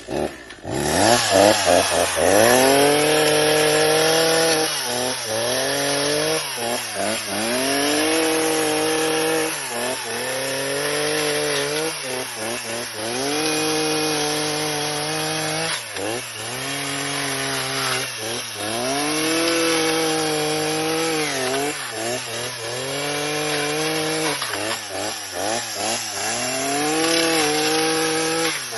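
Chainsaw revving up and cutting through bamboo. Its engine pitch sags under load and climbs back every couple of seconds as it bites into the canes.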